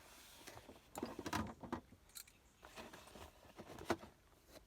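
Light clicks and metallic clinks of small hand tools being handled while a pair of pliers is fetched, with a few sharp knocks, the loudest about four seconds in.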